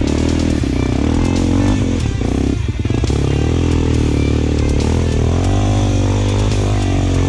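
Single-cylinder four-stroke trail motorcycle engine pulling under load off-road, revs rising and falling with the throttle. Revs drop briefly about two and a half seconds in, then pick up again.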